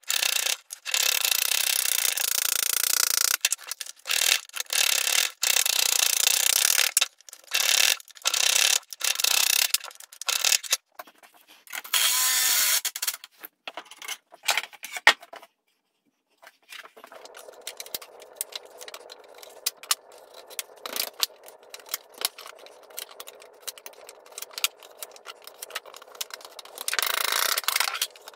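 Wooden boards scraping and sliding across a wooden workbench in long rough strokes. In the second half come quieter scattered clicks and rattles of metal bar clamps being handled and set.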